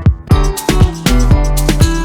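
Background music with a steady drum beat over pitched instrumental notes; a deep bass line comes in about half a second in.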